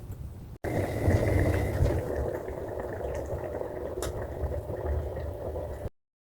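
Pot of soup bubbling at a simmer on the stove, a steady bubbling that cuts off abruptly near the end.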